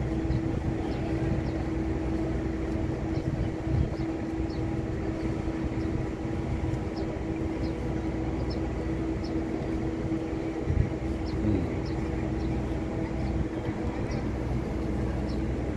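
Steady drone of a docked ship's machinery: a low rumble under a constant hum. One short low thump comes about eleven seconds in.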